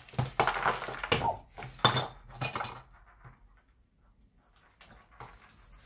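Small wooden kit pieces clattering onto a tabletop as they are tipped out of a plastic bag: a quick run of clicks and knocks over the first three seconds, then a couple of light knocks near the end.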